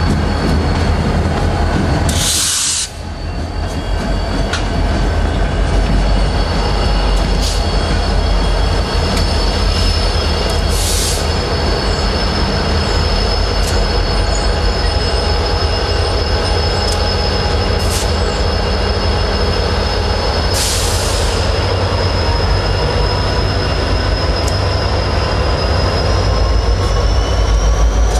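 Diesel-hauled train moving through, with a heavy low engine rumble and a steady high wheel squeal of several tones that rises slightly near the end. Three short bursts of hiss come about 2, 11 and 21 seconds in.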